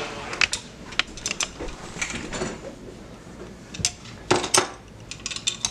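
Irregular series of short, sharp clicks and light clinks of small hard objects, coming in clusters.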